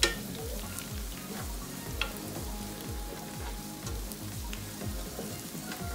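Sliced onions and spices frying gently in oil in a pan, stirred with a wooden spatula that scrapes and gives a few light taps on the pan. Soft background music plays underneath.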